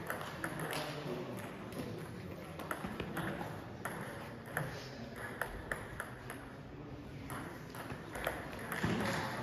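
Table tennis ball being hit back and forth in a rally: a run of short, sharp clicks of ball on paddle and table, coming at an uneven pace.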